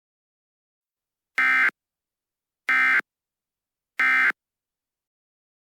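Emergency Alert System end-of-message data bursts: three short, identical electronic buzzes about 1.3 seconds apart. This is the digital code that closes an EAS alert.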